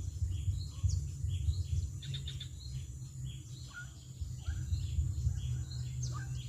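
Birds chirping, short notes repeated about twice a second, over a steady low rumble and a thin, steady high tone.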